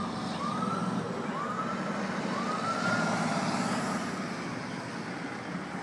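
Emergency vehicle siren sounding in several rising-and-falling sweeps during the first three seconds, over steady traffic and engine noise.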